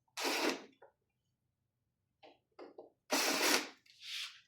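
Handling noise from a Mindray SV300 ventilator being taken apart: several short scrapes and rustles of its casing and parts, the longest about three seconds in, over a faint low hum.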